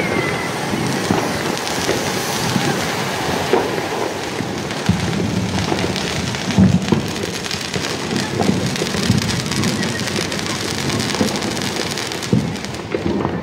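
Ground fountain firework (anar) hissing and crackling as it sprays sparks, a dense patter of tiny pops much like heavy rain. The high hiss fades near the end as it burns out.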